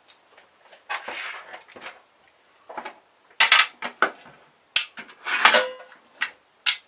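Small metal tools and screwdriver bits clattering and clicking as they are handled and sorted while a screwdriver head is swapped. An irregular run of sharp knocks, busiest in the second half, with one brief metallic ring.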